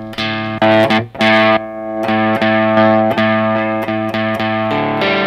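Electric guitar played through a Vox StompLab multi-effects pedal's drive presets, a distorted chord picked over and over every few tenths of a second. The tone shifts as he switches from an amp-model preset to a stompbox-model preset.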